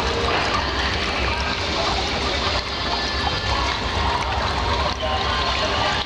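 Water trickling and splashing steadily over the artificial rock of a small tabletop decorative waterfall fountain, with a steady low hum underneath.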